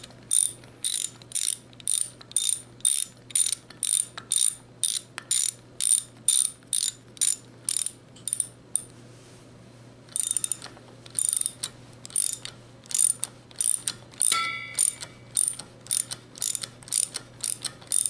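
Small socket ratchet clicking in short, regular strokes, about two a second, as it runs a nylon lock nut down a scuba tank valve stem. There is a brief break about halfway, and a short metallic ring toward the end.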